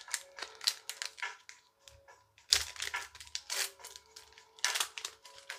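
Foil Pokémon booster pack wrapper crinkling and crackling as it is handled and opened by hand, in irregular bursts, the loudest about halfway through.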